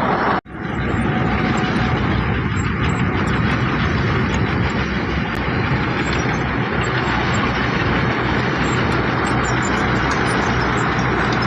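Heavy diesel construction machinery running steadily, with a brief dropout in the sound about half a second in.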